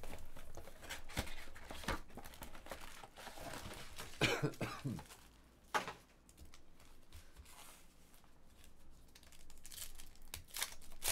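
Plastic shrink wrap crinkling and tearing as it is stripped off a trading card box, with a short throat sound about four seconds in. Near the end a foil trading card pack is torn open.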